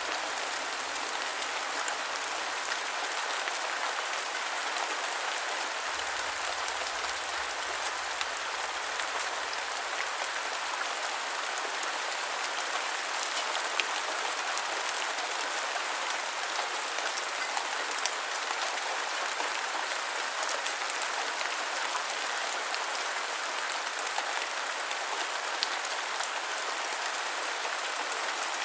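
Steady rain falling: an even hiss of many drops, with scattered sharper drop ticks and a few louder ones.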